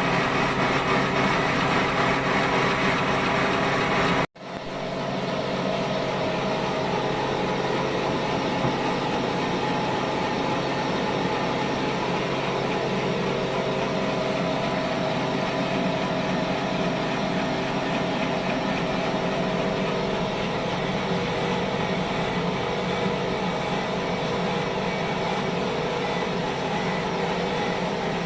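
Sawmill machine running steadily, a constant mechanical hum with several held tones. It cuts out abruptly for an instant about four seconds in, then carries on a little quieter.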